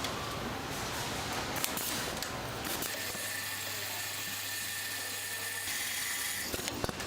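Factory machinery running with a steady mechanical whir. A low hum with a higher tone comes in about three seconds in and drops out nearly two seconds before the end, followed by a few sharp clicks.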